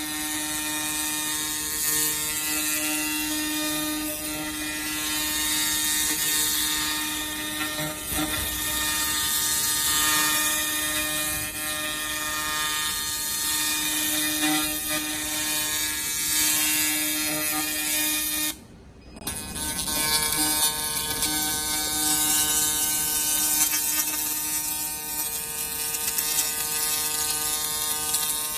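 Handheld fiber laser rust-removal head buzzing steadily as it scans across rusted steel, over a steady high hiss as the rust is burnt off. The sound briefly drops out about two-thirds of the way through.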